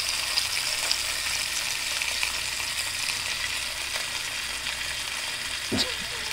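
Two thick ribeye steaks searing in a frying pan: a steady frying sizzle with small crackles scattered through it.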